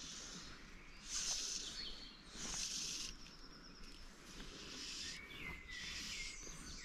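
Fly line swishing through the air on the cast, two swishes about a second apart, with a bird calling faintly later on.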